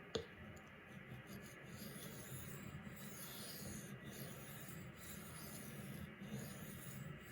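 Knife blade being stroked across a 400-grit Venev diamond sharpening stone, a faint continuous scraping that swells and fades as the edge is worked, with a light click just after the start.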